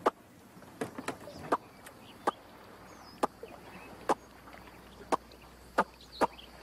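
A person making sharp tongue clucks to call an alligator, about ten short clicks at uneven intervals.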